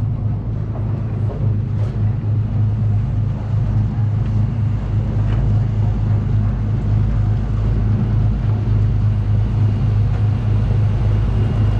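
Ferry engine running at a steady low drone, even throughout.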